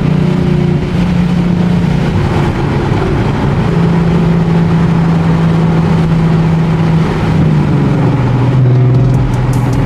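Nissan 370Z's 3.7-litre V6 through ISR long-tube headers and a Tomei exhaust, running loud at steady revs. Its note holds level for several seconds at a time and drops lower about eight seconds in.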